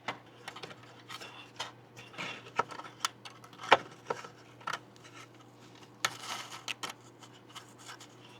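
Clicks, taps and short scrapes of computer parts being handled and fitted by hand, in an irregular string with one louder knock a little before the middle.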